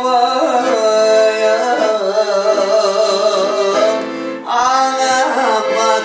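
Piano accordion playing a Balkan kyuchek melody, with a short break in the playing about four seconds in.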